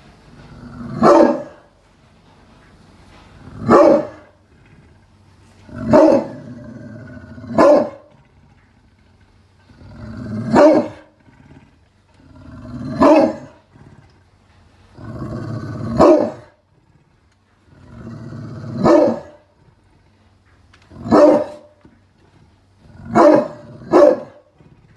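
Pit bull barking: about eleven single deep barks at intervals of two to three seconds, a few led by a low growl, with a quick double bark near the end.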